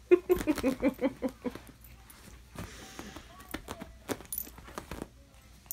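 Sharp clicks and rattles as a feather-and-wire cat toy is flicked about and batted at by a cat. A brief run of quick vocal sounds, about six a second, comes in the first second and a half.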